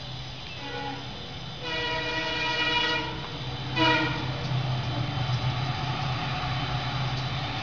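Diesel locomotive horn of a WDP4 hauling the train: a faint short note, then a long blast of about a second and a half, then a short sharp blast, over the steady low rumble of the running train.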